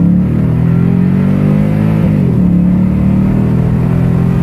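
Toyota Tundra engine under full-throttle acceleration, heard from inside the cab: the engine note climbs steadily, dips sharply about two seconds in as the automatic transmission shifts up, then climbs again.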